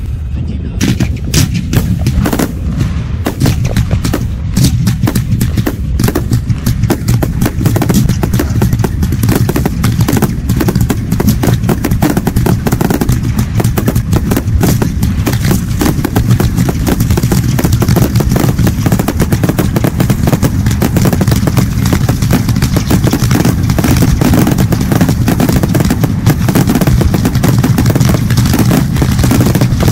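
Fireworks finale barrage: aerial shells bursting in rapid, overlapping bangs over a heavy low rumble. The bangs are separate at first, then merge into an almost unbroken rapid-fire stream.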